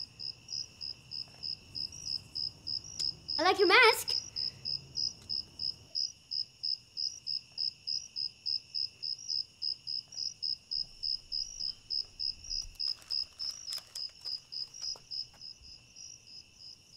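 Crickets chirping steadily, about three chirps a second, over a continuous lower insect trill. About four seconds in, a brief loud rising squeal cuts across them.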